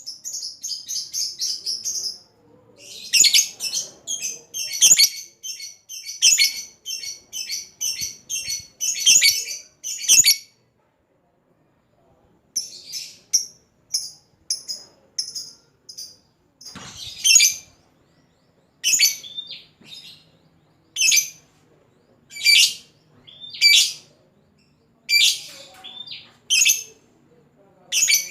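Lovebird's ngekek: long runs of quick, high-pitched chattering chirps, the bird's challenge call. After a short pause about ten seconds in, it goes on as single sharp chirps about a second or more apart.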